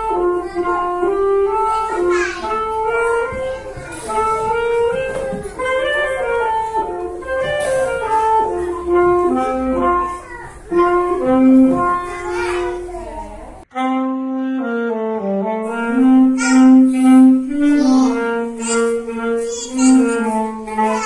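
A saxophone playing a melody of short, separate notes. It breaks off briefly about two-thirds of the way through, then carries on in a lower register.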